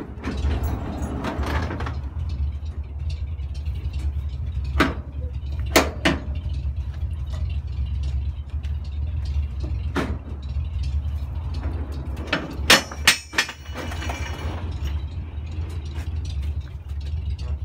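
The tow truck's 1933 Ford flathead (side-valve) V8 idling steadily, with sharp metallic clanks about five, six, ten and thirteen seconds in as winch levers and tow gear are handled.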